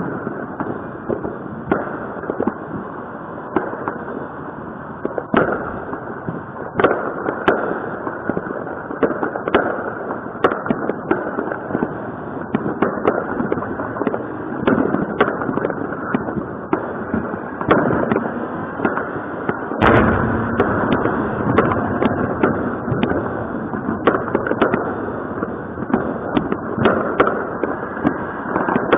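Fireworks and firecrackers going off continuously, many overlapping bangs and cracks at irregular intervals over a steady rumbling din of more distant explosions.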